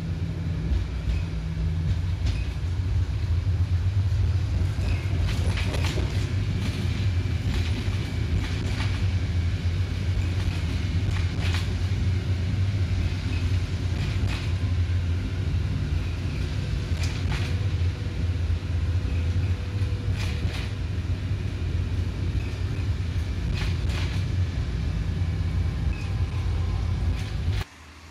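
Tram running along the track with a steady low rumble and scattered sharp clicks from the wheels over the rails. The sound cuts off suddenly near the end.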